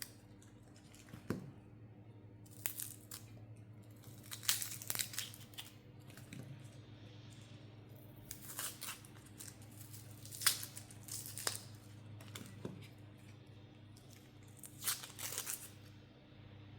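Dry onion skin being peeled and torn off by hand, crackling and crinkling in irregular bursts, with a steady low hum underneath.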